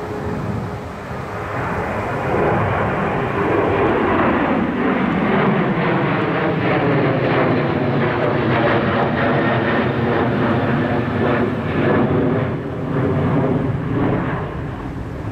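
Jet airliner's engines passing close by, building over the first couple of seconds and then staying loud, with engine tones that slide lower as it goes past.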